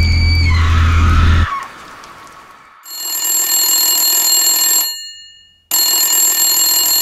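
Old wall telephone's twin bells ringing in two long rings of about two seconds each, with a short break between them. Before that, a low drone with a falling tone cuts off about a second and a half in.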